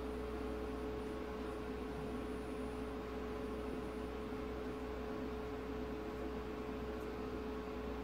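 Steady hum and hiss of a small electric fan motor on a soldering bench, with one fixed mid-pitched tone and a low hum beneath.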